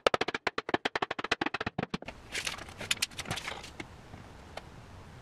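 A quick, even run of sharp clicks, about nine a second, that stops about two seconds in. It is followed by a short spell of scraping and knocking.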